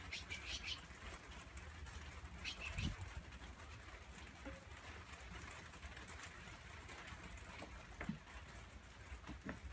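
Puppy whimpering in a few short, high squeaks at the start and again about two and a half seconds in, with a couple of soft knocks later and a low hum underneath.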